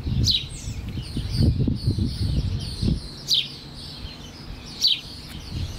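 Songbird chirping outdoors: short, high, falling chirps repeated every second or two. A low rumble runs under the first half.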